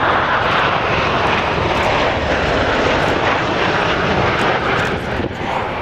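A Bell Boeing CV-22B Osprey tiltrotor's two Rolls-Royce AE1107C turboshafts and big proprotors running loud and steady overhead, with a fast low pulsing from the rotor blades and a brief dip in level near the end.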